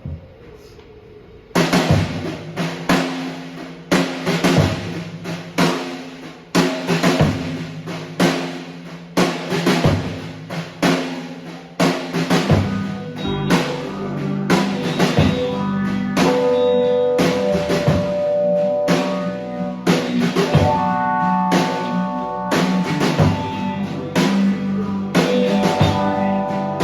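Indie rock band playing: after a near-quiet second and a half the drum kit comes in with a steady kick-and-snare beat, and from about halfway held melodic notes from synthesizer and guitar join over the bass.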